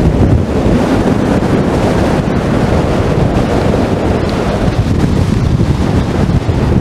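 Strong wind blowing across the microphone: a loud, steady low rumble that flutters from moment to moment.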